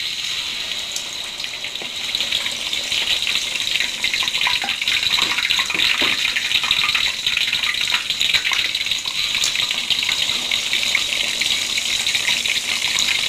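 Whole tilapia deep-frying in hot vegetable oil, a dense steady sizzling and crackling that grows louder about two seconds in.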